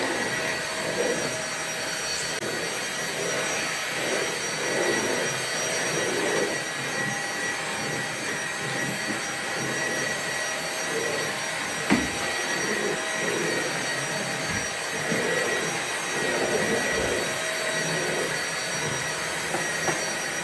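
Vacuum cleaner running steadily: an even rush of air with a thin, steady high whine from the motor. A single sharp knock about twelve seconds in.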